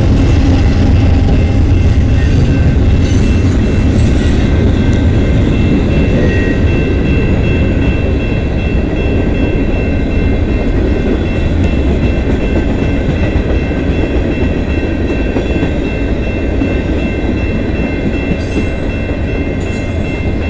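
CN freight train rolling past at a level crossing: a loud, steady low rumble of the locomotives moving off and a long string of tank cars passing, easing slowly as the train goes by. Steady high-pitched ringing tones sound over the rumble from a few seconds in.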